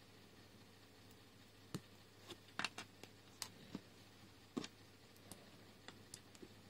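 Small plastic LEGO pieces clicking and tapping as they are handled, pressed together and picked up off a wooden table: scattered sharp clicks, the loudest in the middle.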